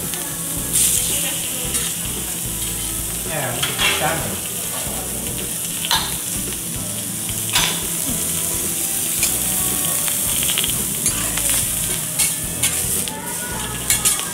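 Butter and chopped vegetables sizzling on a hot flat steel teppanyaki griddle, a steady frying hiss, broken by irregular sharp clinks and scrapes of metal spatulas on the steel plate.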